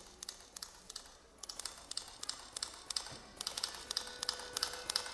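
Rapid key clicks of typing, in quick irregular bursts, used as a sound effect in the dance's soundtrack. A faint held tone of the music comes in near the end.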